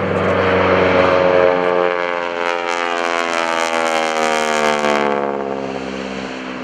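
North American SNJ-5 Texan's Pratt & Whitney R-1340 Wasp radial engine and propeller as the aircraft flies past, a loud droning note whose pitch falls slowly as it goes by and away.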